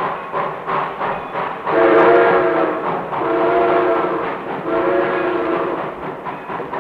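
Steam train pulling out with a steady rhythmic chuffing and three long chime-whistle blasts, each about a second long, in the middle.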